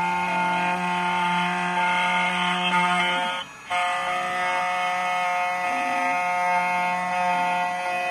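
2m2tank CNC key cutting machine running its cutter, milling the bitting into an HU66 key blank with a steady whine that drops out briefly about three and a half seconds in.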